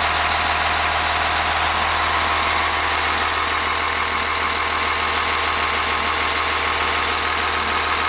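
Cummins 8.3-litre inline-six diesel idling steadily, heard up close in the open rear engine bay of a school bus.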